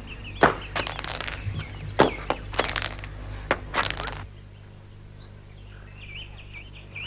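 Birds chirping over a low steady hum. In the first four seconds there is a quick, irregular run of sharp knocks, which stops abruptly.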